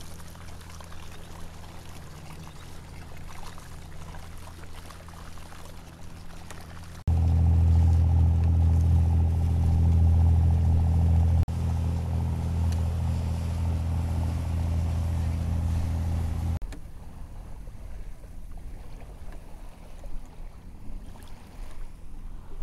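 Boat outboard motor running steadily with water washing past the hull. It gets much louder about a third of the way in, then cuts out about two-thirds through, leaving water splashing and wind.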